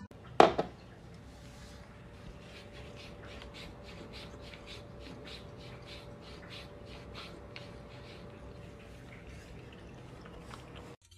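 A cat lapping water from a drinking glass: a quick, even run of soft wet laps, about three to four a second. A single sharp knock about half a second in is the loudest sound.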